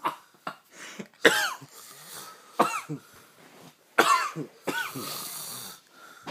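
A sleeping man snoring in loud, sudden bursts, four of them from about a second in, each sliding down in pitch.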